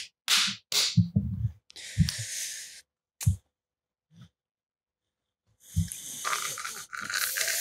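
Short breathy exhalations and brief vocal sounds close to the microphone, including a hissing breath about two seconds in and a small click. Then about two seconds of dead silence, and faint noise comes back near the end.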